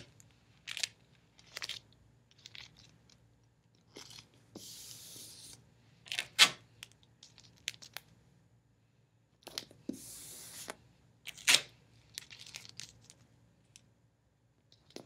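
Tape pulled off the roll with a ripping hiss twice, about five and ten seconds in. Between the pulls come several sharp snaps and taps as strips are torn off and pressed down over a plastic zip-top bag.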